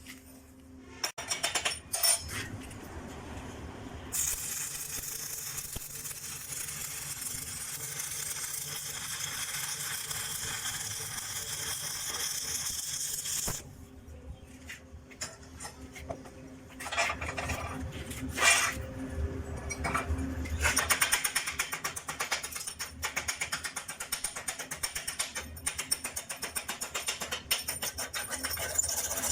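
Stick-welding arc crackling and hissing steadily for about nine seconds, then stopping. A few knocks follow, then a fast run of repeated sharp strokes on metal, typical of cleaning slag off the fresh weld.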